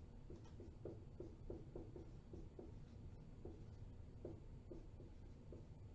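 A pen writing, heard faintly as a series of soft, irregular ticks and scratches, about two or three a second, as a mechanism is drawn out.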